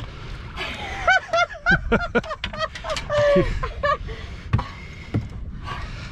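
A person laughing and squealing in short, high-pitched bursts for the first few seconds, over a steady low rumble.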